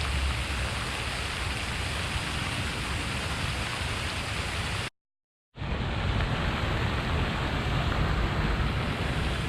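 Steady rushing of park fountain water picked up through a true wireless earbud's microphone, with a heavy low rumble. It cuts out completely for about half a second around the middle, then carries on with a slightly different tone.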